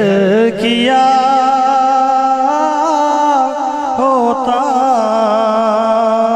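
A man singing a naat, an Urdu devotional poem in praise of the Prophet, into a microphone over a sound system, drawing out long wavering notes.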